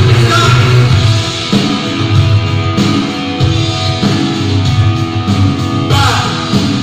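Rock backing music with electric guitar and a steady beat, playing as a workout soundtrack.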